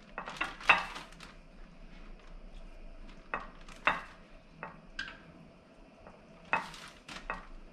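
Metal kitchen tongs clicking and a plastic bag crinkling as fish fillets are lifted from a glass dish and dropped into a bag of corn flour: a handful of short, sharp clicks and rustles.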